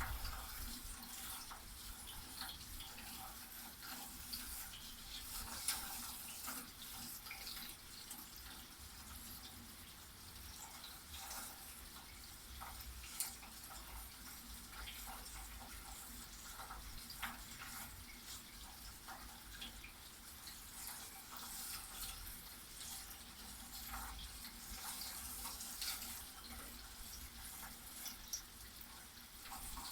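Rain falling steadily, a soft even hiss with many scattered drops ticking close by.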